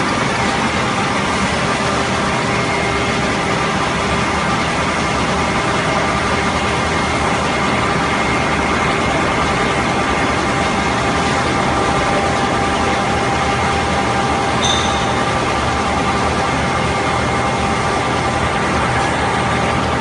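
Aluminium-shell induction melting furnace in operation: a steady, loud industrial hum with several constant whining tones over it.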